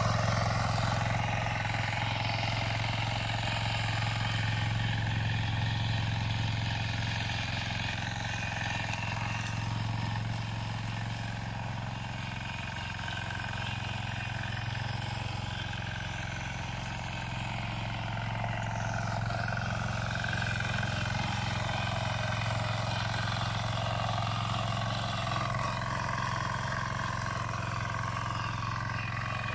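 A patpat walk-behind two-wheel tractor engine running steadily under load as it plows the soil, growing a little fainter midway and then coming back up.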